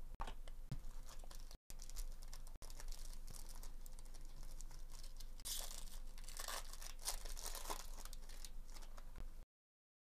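Foil wrapper of a 2023 Bowman Chrome baseball card pack tearing open and crinkling, with the loudest rips about five and a half and seven seconds in.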